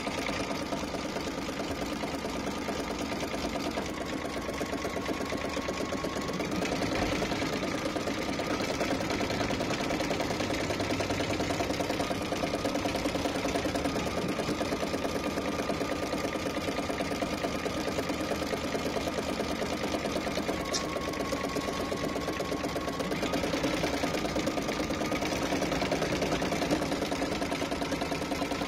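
Computerized embroidery machine stitching, its needle running at a fast, steady rhythm. A faint motor whine underneath shifts up and down in pitch every few seconds.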